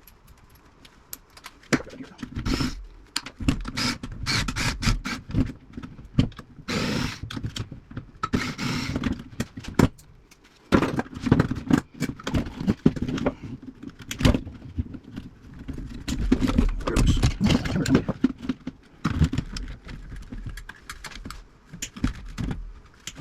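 Irregular metallic clicks, clinks and knocks of tools and parts being handled while an old tube radio's wired chassis is taken apart for scrap, with two brief scraping sounds about seven and nine seconds in.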